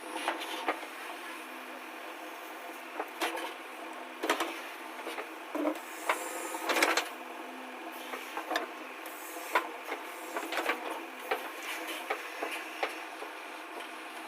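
A backhoe loader's engine running steadily, with irregular knocks and clatters over it; the loudest cluster comes about seven seconds in.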